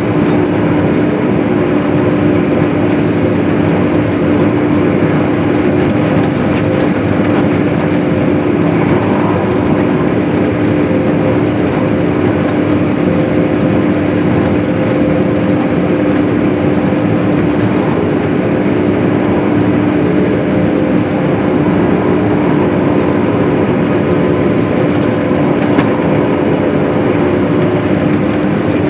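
Hay-cutting farm machine running steadily under load: a constant engine drone with a steady hum over it, unchanging throughout.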